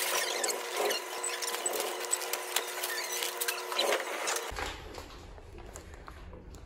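Wire shopping cart rattling and clicking as it rolls, with a faint steady whine under it. It cuts off abruptly about four and a half seconds in, leaving a quieter low hum with light clicks.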